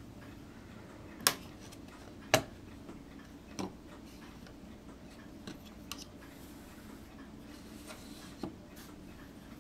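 A few sharp, irregular clicks and taps of a small hobby chisel being handled and slid out of its plastic case, the loudest about two seconds in, over a low steady background hum.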